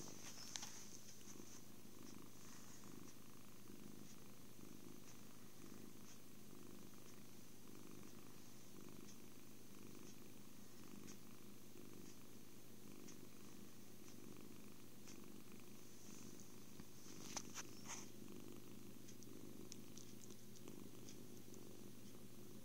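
Kitten purring steadily and continuously, with a few brief clicks near the start and again about three-quarters of the way through.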